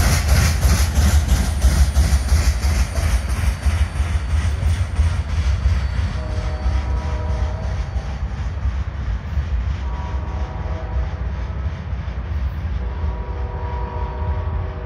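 Loaded coal hopper cars rolling by, with a regular pounding of several bangs a second from wheels with severe flat spots, fading as the cars pass. In the second half, a faint chord of steady tones comes and goes three times.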